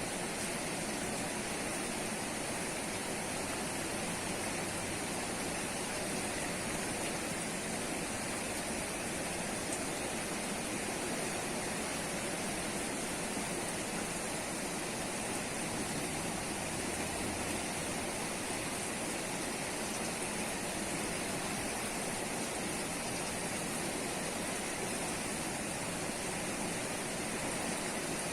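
Steady rush of river water flowing over rocks, an even hiss without a break.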